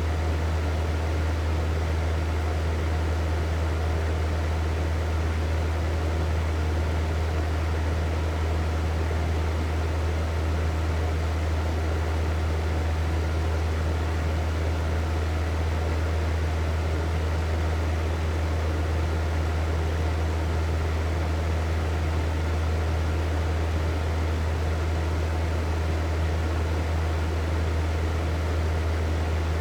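Hair dryer running steadily: an even rush of blown air over a deep, constant motor hum, with no change in speed.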